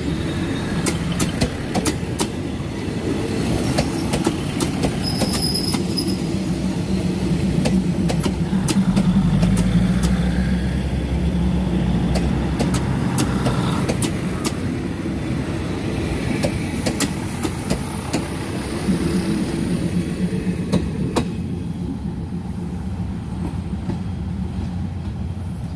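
State Railway of Thailand diesel railcar train rolling past: its diesel engines hum, and its wheels click over the rail joints. It is loudest about nine to eleven seconds in.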